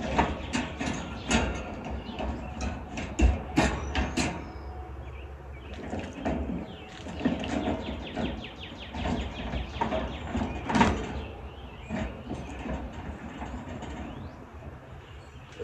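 Irregular clicks, taps and rattles of a wire birdcage and its plastic dishes being handled, repeated throughout.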